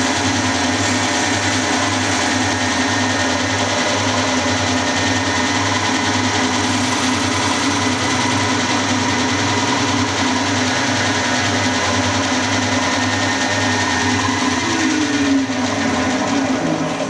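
Milling machine spindle running while a 3/8-inch end mill cuts a bore into a small tailstock casting: a steady machine whine with a regular low throb. There is a brief falling tone near the end as the cutter is brought up out of the hole.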